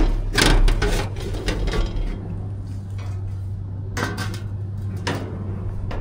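Clicks and knocks of parts and tools being handled, several in quick succession in the first two seconds and a few more near the end, over a steady low hum.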